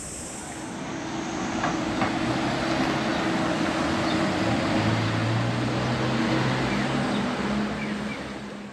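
A vehicle passing close by: a steady rushing noise with low humming tones that swells about a second in.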